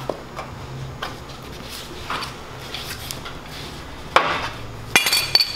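Soft knocks and rubbing as a truck bumper is handled and lifted, then a loud clunk about four seconds in and two sharp metallic clinks with a brief ringing near the end.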